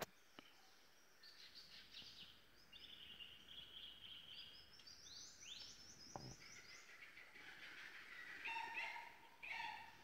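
Faint forest birdsong: scattered chirps and short trills from several small birds, with a run of quick falling whistled notes about five seconds in and louder chirping near the end. A few soft knocks, one about six seconds in.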